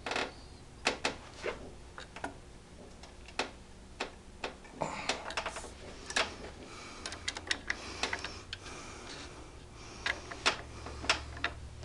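Irregular metallic clicks and clinks of a barrel nut wrench and tools being handled on an AR-15 upper clamped in a bench vise, over a low steady hum.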